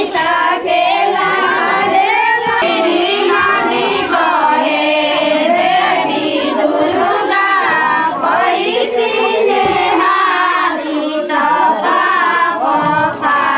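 A group of women singing together, many voices overlapping without a break.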